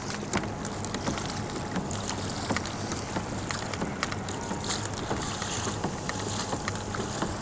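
Water lapping and splashing against a kayak's hull as it moves through calm sea, with scattered small clicks and splashes. Wind buffets the microphone.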